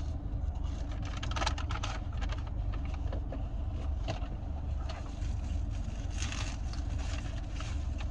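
Steady low rumble of a car idling, heard from inside the cabin, with scattered rustling and crinkling, like a paper food bag being handled.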